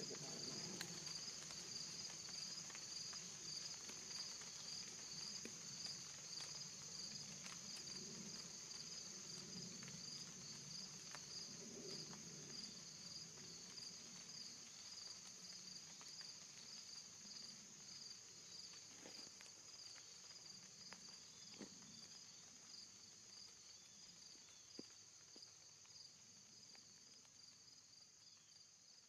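Crickets chirping in a steady high-pitched chorus, with a fast pulsing chirp just beneath the main trill, slowly fading out. Faint low rustling and a few soft clicks lie underneath.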